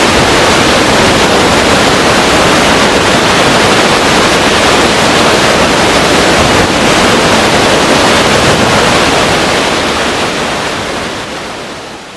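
Waterfall rushing, a loud steady roar of falling water that fades out over the last few seconds.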